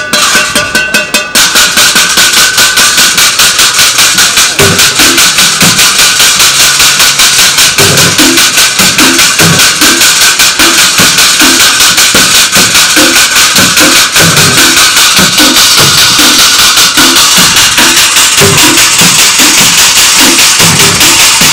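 Street drummer playing an improvised kit of junk with wooden sticks: a fast, steady stream of bright clanging hits on sheet-metal pieces, with low, hollow thuds on plastic canisters and buckets coming in from about five seconds in and recurring in a rhythm.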